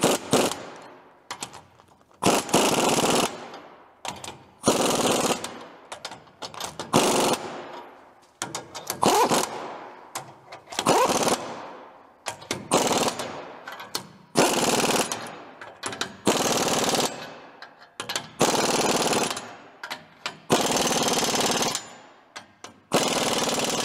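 Pneumatic impact wrench hammering in short bursts on bolts, about a dozen bursts, each roughly a second long and about two seconds apart.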